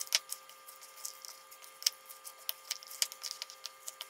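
A spoon stirring thick, wet vegetable fritter batter in a bowl: irregular wet clicks and scrapes as the spoon works through the shredded vegetables and knocks against the bowl. A faint steady hum runs underneath.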